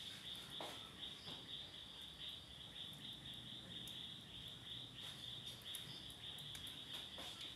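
A cricket chirping steadily in the background: a faint, high, evenly pulsing chirp, several pulses a second.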